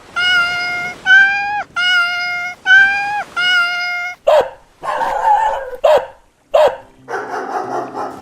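Sound-effect dog yapping: five short, evenly pitched high yaps in the first four seconds, followed by several briefer sharp sounds with falling pitch and noisy stretches.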